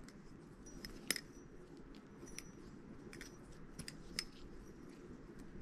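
Faint metallic clicks of a Hom Design I-Basilisk balisong (butterfly knife) being flipped: the handles and blade knock against each other at uneven intervals, a few clicks carrying a brief high ring.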